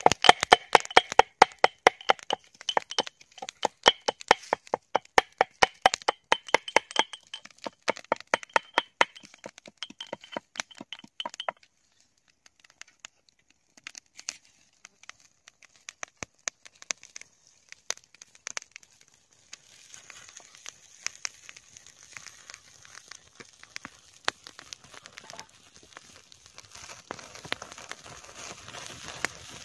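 Rapid sharp knocks and cracks, several a second, that stop abruptly about eleven seconds in. After a quieter stretch, an open wood fire crackles softly.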